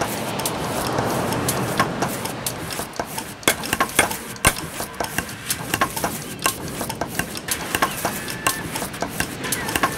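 A busy, irregular clatter of sharp clicks and knocks, with a rushing hiss underneath during the first couple of seconds.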